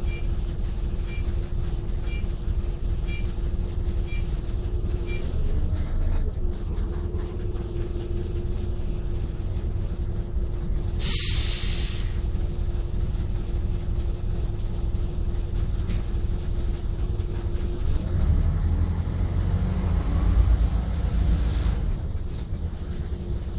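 Optare Solo bus heard from inside the saloon, its diesel engine running with a steady low hum and rumble. About halfway through there is a sharp hiss of air lasting about a second, typical of the air brakes releasing. Near the end the engine revs up with rising pitch as the bus pulls away.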